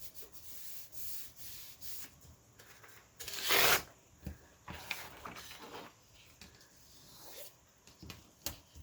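Paper being handled and rubbed against a tabletop while a glued paper hinge strip is smoothed down: a run of dry scraping swishes, the loudest a longer swish about three and a half seconds in, with a few light taps.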